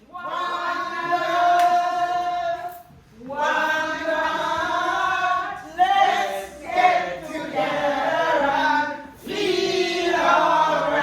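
A group of voices singing together in long held notes, in several phrases broken by short pauses.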